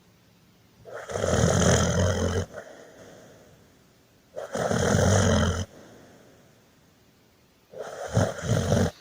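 Snoring: three loud snores about three and a half seconds apart, each lasting a second or so with a low rattling buzz, the last one broken into a few quick pulses.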